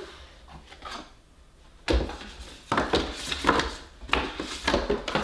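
Cardboard toy packaging being handled: after a quiet start, a run of irregular scrapes and knocks from about two seconds in as the box pieces rub and are set down on the table.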